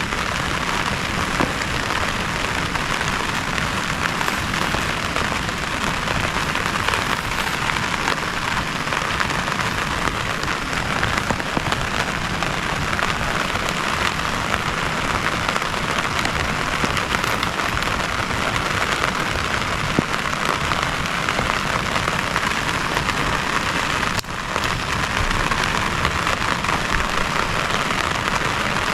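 Heavy rain falling steadily, a dense patter of many small drops, with a brief drop in level near the end.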